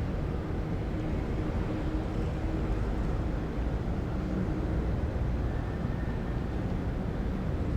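City ambience: a steady low rumble of distant traffic, with a faint drone through the first few seconds.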